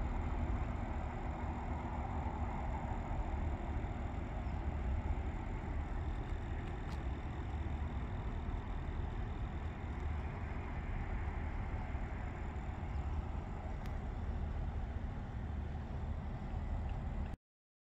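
Steady low rumble of an idling engine, cutting off suddenly near the end.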